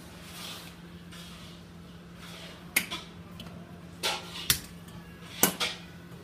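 Hot fat sizzling softly in a black iron kadai, with a few sharp crackling pops, about four, in the second half.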